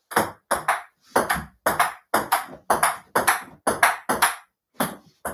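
Ping-pong ball clicking back and forth in a table tennis rally on a small folding table, each bounce on the tabletop answered by a hit off a paddle, about four clicks a second. The clicks slow and spread out near the end.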